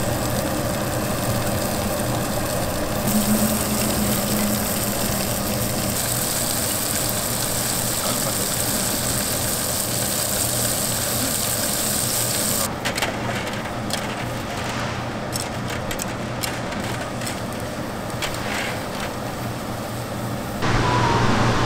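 Steady grill and kitchen noise, a low hum under a hiss. About halfway through it turns quieter, with scattered sharp clicks and taps.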